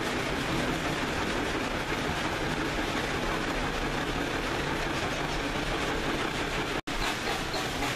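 Steady rumble and rattle of a moving passenger train heard from an open car: wheels running on the rails and the cars jostling along. The sound cuts out for an instant near the end.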